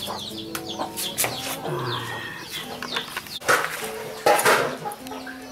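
Chickens clucking and small birds chirping, with many short quick chirps throughout and a couple of louder noisy bursts a little past the middle.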